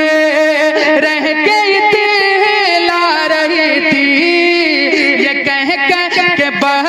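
Naat singing: a male voice holding long, ornamented notes that bend and glide, without clear words.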